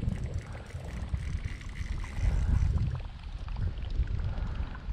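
Wind buffeting the microphone: an uneven, gusting low rumble with a faint hiss above it, loudest a little after the middle.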